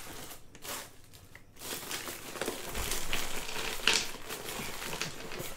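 Crinkly wrapping around a rolled-up diamond painting canvas rustling and crackling as it is handled. It starts after a short quiet about a second and a half in, with a sharper crackle about four seconds in.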